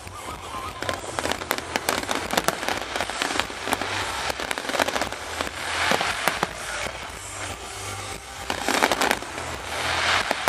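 Fireworks display: rapid bangs of bursting shells mixed with dense crackling from glittering gold crackle effects, swelling louder about six seconds in and again near the end.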